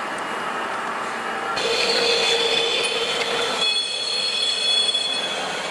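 Model train running along its track, with steady high whining tones that start about a second and a half in.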